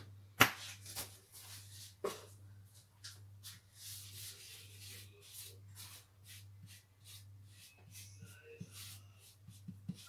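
A hand rubbing and smearing oil over rolled-out paratha dough on a wooden table: soft, irregular rubbing strokes, after a sharp knock about half a second in. A steady low hum runs underneath.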